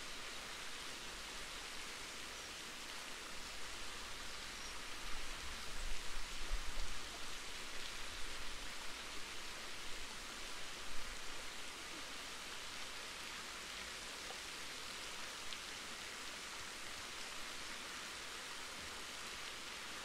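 Steady rushing hiss of a waterfall, with a few louder low rumbles swelling around the middle.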